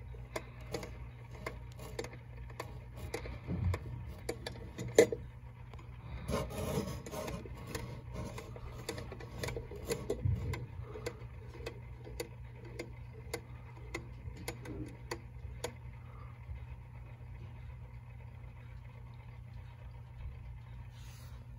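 Battery-powered quartz wall-clock movement ticking about twice a second; it has a real ticking mechanism inside the battery movement. The ticks grow much fainter in the last few seconds. A few handling rubs and knocks fall in the middle, the loudest a sharp knock about five seconds in.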